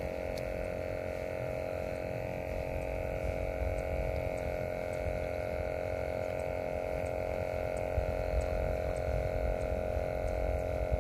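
Steady droning hum made of several held tones, over a low rumble.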